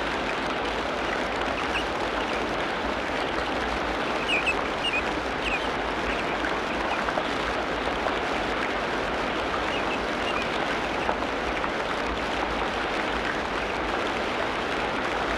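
Tropical rainforest ambience: a steady hiss of rain, with a few short high chirps about four to five and a half seconds in and again near ten seconds.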